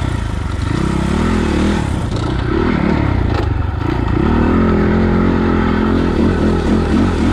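SSR Motorsports SR300 dirt bike engine breathing through a Pro Circuit exhaust, revving up and down repeatedly as the throttle is worked, then held steadier and a little louder around the middle. The engine is running cleanly, with no bobbling or misfire.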